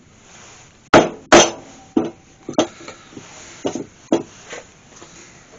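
Sharp knocks and taps of a pointed hand tool being struck into an oak block to mark a hole centre. Two loud knocks come about a second in, followed by several lighter taps.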